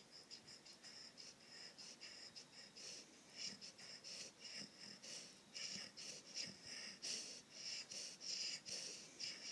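Snoring with a high, wheezy whistle: short breaths repeating a few times a second, faint at first and louder after about three seconds.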